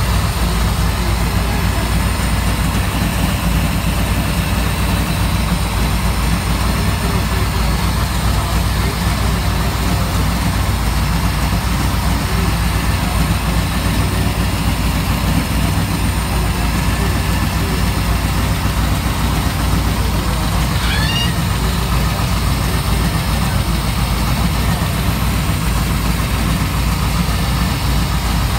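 A 598 cubic-inch supercharged V8 idling steadily, with a belt-driven blower on top. A short high chirp cuts in about two-thirds of the way through.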